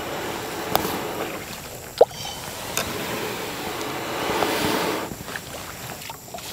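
Canoe paddling in shallow water: water swishing and splashing around the paddle and hull, with a few sharp knocks, the loudest about two seconds in, and a longer surge of water noise near the end.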